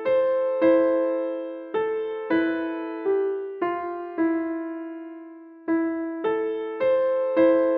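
Solo piano playing a slow, simple alarm-clock tune of single notes, each struck and fading, about two a second. About halfway through, one note is held for a second and a half before the same phrase starts again.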